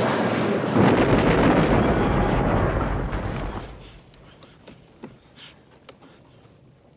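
Film sound effect of a spacecraft crash-landing: a loud rumbling crash noise that dies away about three and a half seconds in, leaving a few faint scattered clicks and ticks.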